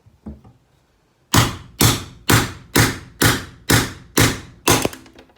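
A hammer striking a chisel eight times in a steady rhythm, about two blows a second, each a sharp metal-on-metal hit with a short ring, chopping the heads off rivets.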